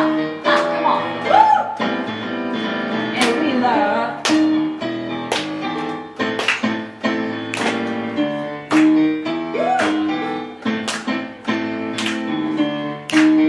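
Live music: sustained keyboard chords over a steady beat, with a woman scat-singing into a microphone in short phrases, her voice sliding in pitch about a second in and again about ten seconds in.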